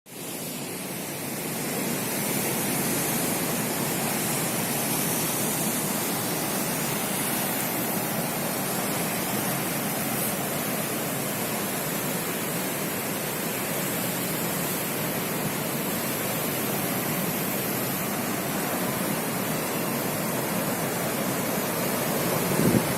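Big ocean waves breaking on the shore, a steady roar of surf that fades in over the first couple of seconds.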